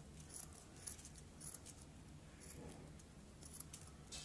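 Faint, repeated snips of scissors cutting a fringe into a strip of duplex paper, one short cut every half second to a second.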